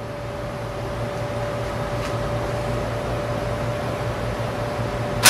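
Steady electrical hum of a kitchen appliance, a low hum with a thin steady whine above it, ending with a sharp click.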